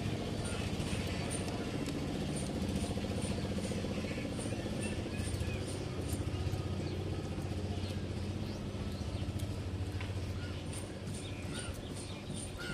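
Steady low hum, like a distant running engine, with birds chirping now and then, more of them near the end.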